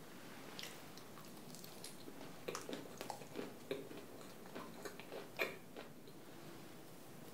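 A soft-crusted piece of sweet pumpkin gugelhupf (kouglof) bread being torn apart by hand: an irregular run of small crackles and soft tearing sounds, with the sharpest crackle about five seconds in.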